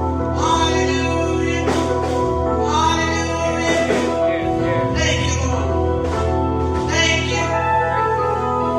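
Gospel music with singing over a steady bass and held chords.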